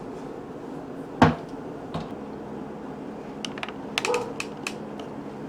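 Hard plastic clicks and knocks from a Nutri Ninja blender cup being handled and fitted onto its motor base. There is one sharp knock about a second in, then a quick run of small clicks toward the end.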